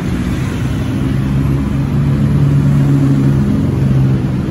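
Street traffic: a motor vehicle engine running close by with a steady low hum. It swells through the middle and eases off near the end.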